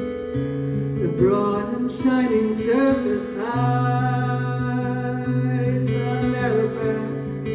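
A woman singing a folk song to a strummed and picked acoustic guitar, with long held sung notes.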